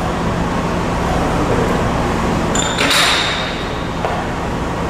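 Steady hum of a CIDAN sheet-metal folding machine, with a short metallic scrape about three seconds in.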